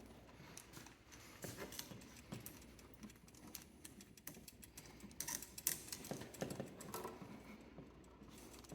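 Faint, scattered light clicks and rustles of electrical wires being handled and joined in a switch box, with a cluster of clicks about five to seven seconds in.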